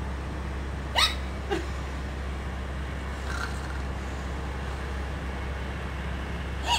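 Steady low background rumble, with a short sharp squeak-like sound about a second in, a fainter one just after, and another near the end.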